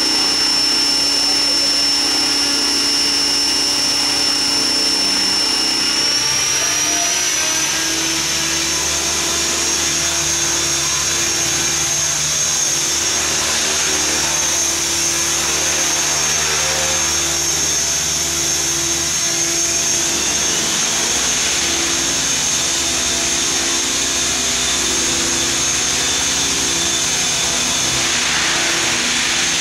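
Radio-controlled Align T-Rex helicopter running with a high steady whine. About six seconds in, the pitch rises as the rotor speeds up, then it holds steady.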